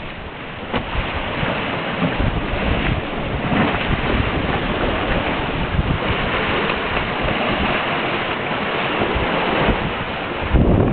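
Wind buffeting the microphone over the steady rush of water along a sailboat's hull, sailing in about 15 knots of wind in open sea. The wind noise swells louder near the end.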